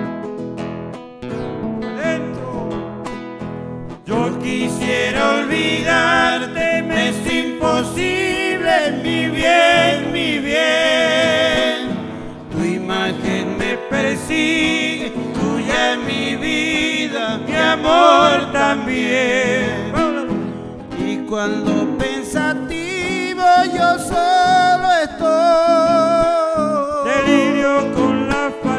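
Acoustic guitars strumming a song, with singing coming in about four seconds in.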